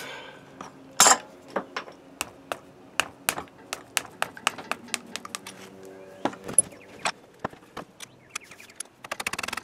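Open-end wrench on a stiff set bolt of a cast-iron adjustable angle plate, struck with a mallet to break the bolt loose: sharp metallic clinks and knocks. A loud knock comes about a second in, then irregular clicks several a second, with a quick rattle near the end.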